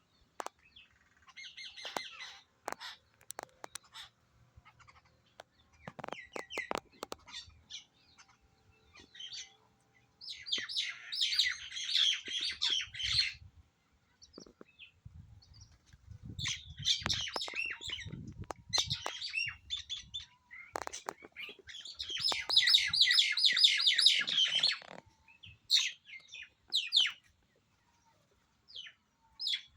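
Birds chirping in bursts of rapid, high-pitched chatter a few seconds long, with pauses between, and a few scattered sharp clicks in the first several seconds.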